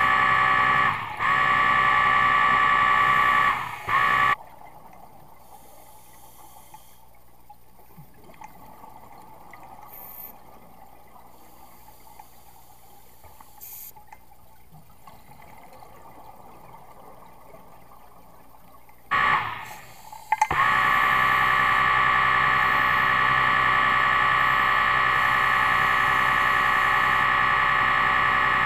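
A loud, steady buzzing drone of several fixed tones that breaks off about four seconds in, leaving only a faint background hush, and starts again about twenty seconds in.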